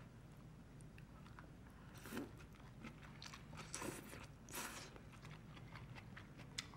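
Udon noodles being slurped up from chopsticks in three short slurps, with small mouth clicks between them. There is a single sharp click near the end.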